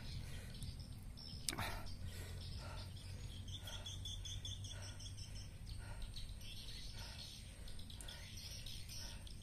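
Quiet outdoor ambience: a steady low rumble with faint, repeated high chirping of insects or birds, and a single sharp click about one and a half seconds in.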